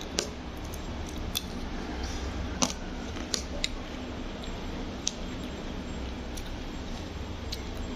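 A metal spoon clinking against a bowl now and then while porridge is eaten: several light, sharp clicks at uneven intervals over a steady low room hum.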